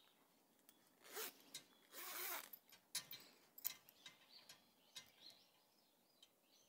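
Zipper on a mesh hanging drying net being pulled shut in two short pulls, followed by a few light clicks and rustles of the net.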